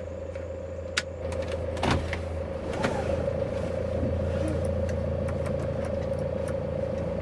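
Hyundai Starex van running, a steady engine and road hum with a sharp click about a second in and brief knocks around two and three seconds in, growing a little louder after that.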